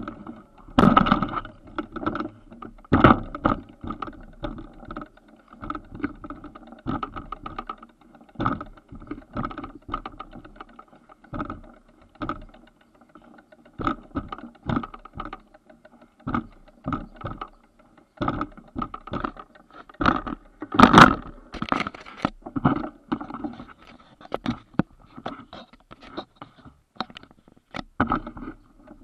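Footsteps going down stone steps, with knocks and rubbing from the small camera being carried. Irregular thuds and scrapes come about one or two a second, loudest about two-thirds of the way through.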